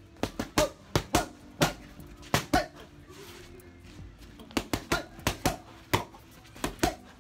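Boxing gloves striking leather focus mitts in quick combinations: about fifteen sharp slaps in bursts of two to five, with a longer pause near the middle.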